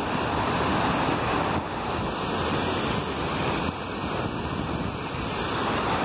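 Steady rushing of river water cascading over rocks, with wind buffeting the microphone.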